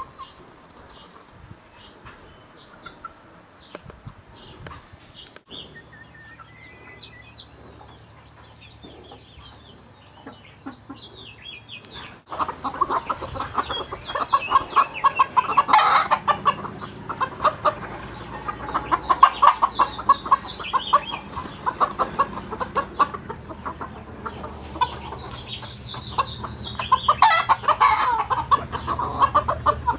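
A flock of chickens clucking and squawking. The calls are faint at first and become much louder partway through, with two sharp outbursts of squawking standing out.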